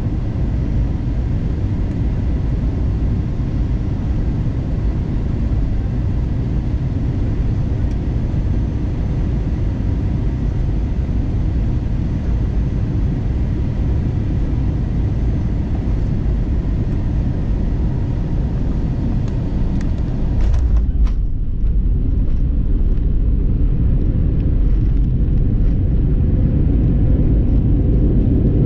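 Cabin noise of an Airbus A321-200 on landing: a steady low rumble of its IAE V2500 engines and airflow. About two-thirds of the way through, a short jolt and rattle marks the main wheels touching down, and the rumble then builds as the engines spool up for reverse thrust.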